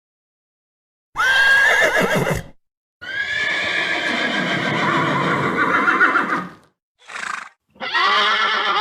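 Horse neighing in repeated calls: a short neigh about a second in, then a long neigh lasting about three and a half seconds, a brief burst, and another neigh beginning near the end.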